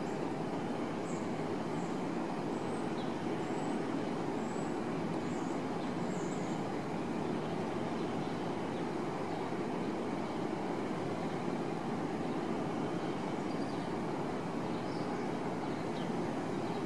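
Steady background noise, an even low rumble that holds at one level throughout, with a few faint high chirps in the first half.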